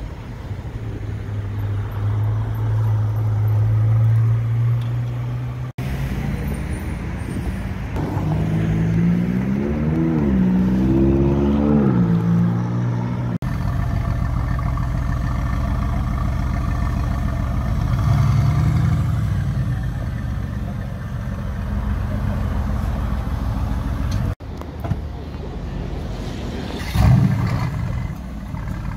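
Supercar engines in a string of short clips. First a steady engine note, then several quick revs up and down. After that a Mercedes-AMG GT R's twin-turbo V8 idles, with a brief throttle blip near the end.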